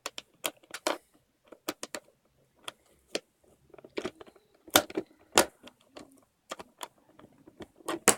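Irregular sharp plastic clicks and snaps of a Dayan Zhanchi 3x3 speedcube's pieces being handled and pushed back into place during reassembly, with the loudest clicks about halfway through.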